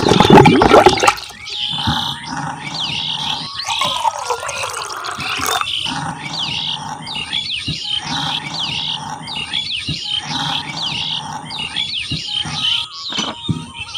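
Gulping, gargling water-drinking sounds in a low, pulsing rhythm, under birds chirping in quick, repeated short chirps. A loud burst comes at the very start, and a long falling tone comes about four to five seconds in.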